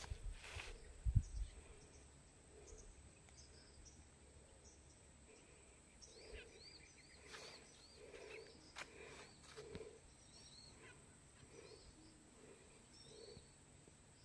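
Quiet rural outdoor ambience with birds calling: many short, arching high chirps repeated over and over, with a lower note recurring under them about every second. A few low thumps in the first second and a half.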